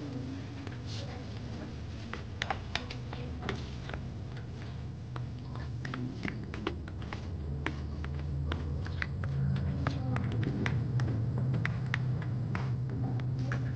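Metal spoon stirring a thin flour batter in a glass bowl, clicking and scraping against the glass many times at an irregular pace, over a steady low hum.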